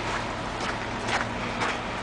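Footsteps crunching through deep snow, about two steps a second, over a steady low hum.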